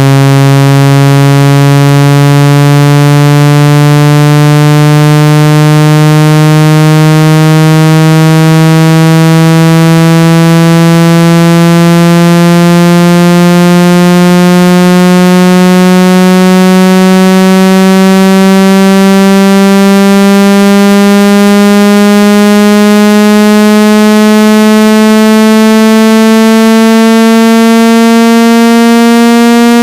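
Synthesized speaker water-eject tone: a loud, low, buzzy tone that climbs slowly and steadily in pitch, played to vibrate a phone speaker's cone and push water out of it.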